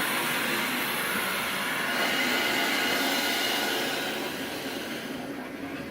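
Water rushing through the just-opened cold-water supply valve and pipe into a partly drained 40-gallon water heater tank as it refills: a steady hiss that eases off after about four seconds.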